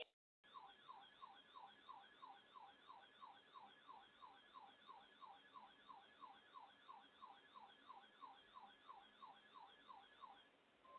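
Faint electronic siren-like tone, a short falling sweep repeated over and over at about three a second, stopping shortly before the end.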